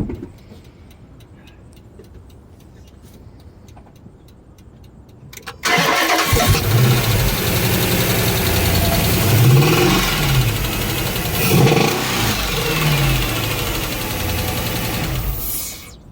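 Dodge Challenger SRT8's 6.1 Hemi V8 starting about six seconds in, running loudly with its pitch rising and falling a few times as it is revved, then shut off near the end. The owner says this engine has a misfire in cylinder 8 and a heavy tapping noise.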